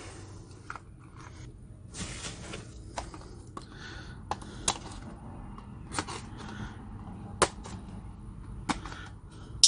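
Hands handling a small cardboard knife box and its plastic packaging: scattered sharp clicks and taps, about ten over several seconds, with brief rustling in between.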